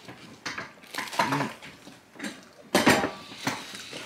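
Spoon clinking and scraping in a bowl of cereal: a few separate sharp knocks, the loudest about three seconds in.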